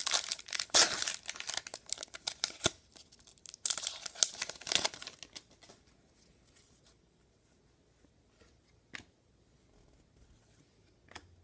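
Foil wrapper of a hockey card pack being torn open and crinkled. The crinkling is busy for about the first five seconds, then it goes quiet apart from two faint clicks.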